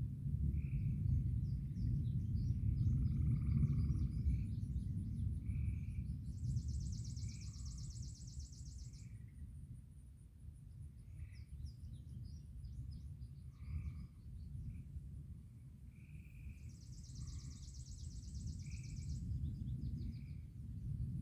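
Distant thunder rumbling low, swelling over the first few seconds, dying away by about halfway and building again near the end. Birds call over it, with two buzzing high trills.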